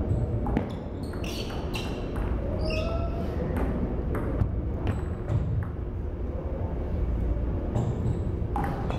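Table tennis ball clicking sharply off paddles and the table during a rally, sparser between points, then clicking quickly again near the end as play resumes.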